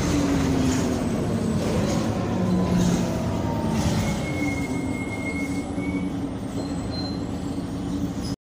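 Mercedes-Benz O345 city bus's diesel engine running steadily, with a faint falling whine in the first seconds and a thin high squeal for about two seconds around the middle. The sound eases a little in the second half and cuts off abruptly just before the end.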